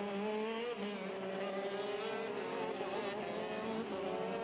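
Several two-stroke 125cc shifter kart engines running on track, a steady mix of engine notes holding a fairly even pitch.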